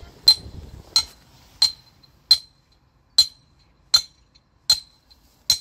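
Metal mooring pin being driven into the bank with a hammer: eight sharp metallic strikes about three-quarters of a second apart, each with a brief high ring.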